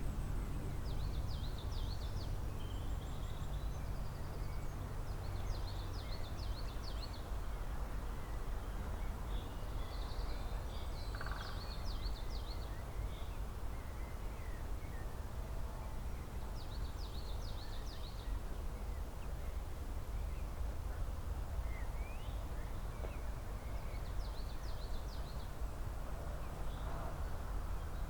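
Songbirds singing short, rapid high-pitched phrases that recur every several seconds, over a steady low background rumble.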